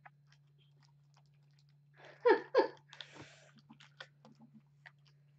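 Light, scattered clicks of a computer keyboard being typed on. About two seconds in come two short, high-pitched kitten mews in quick succession, the loudest sounds here, over a steady low hum.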